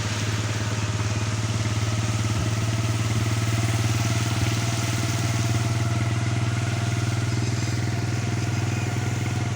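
Small motorcycle-type engine running steadily, a constant low hum with a fast even pulse.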